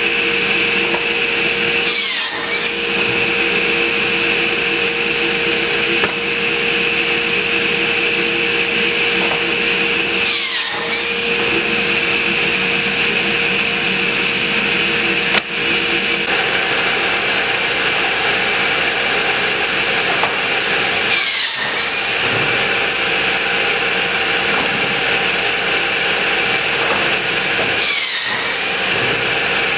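Crosscut Solutions CS24P pop-up cut-off saw running steadily and crosscutting a stack of boards four times; each cut is a brief, sharp downward sweep in its high whine. A single sharp click comes near the middle.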